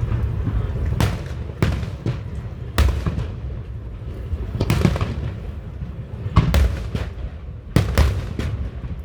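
Aerial fireworks shells bursting in a string of booms, one every second or so, over a continuous low rumble.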